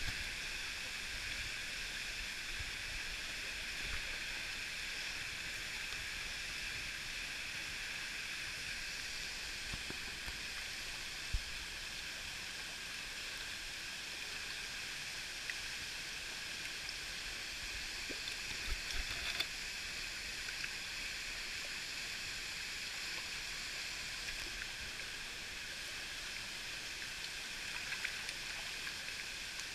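Steady rush of a waterfall pouring into a rocky pool, with a few dull knocks about a third of the way in and again a little past the middle.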